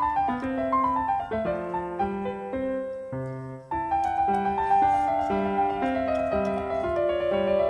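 Background piano music, a steady run of single notes that thins out briefly about three seconds in and then carries on.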